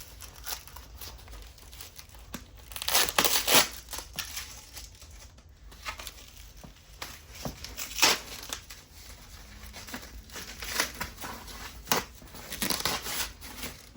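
Packaging being unwrapped by hand: plastic or paper wrapping crinkling and tearing in irregular bursts, loudest about three seconds in, at eight seconds and near the end.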